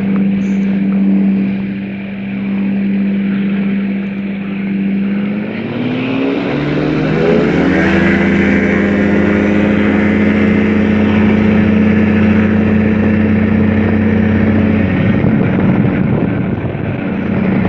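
Microlight trike's engine and propeller running steadily at low power, then throttled up from about five and a half seconds in, its pitch rising over two seconds to a steady full-power run for the takeoff roll.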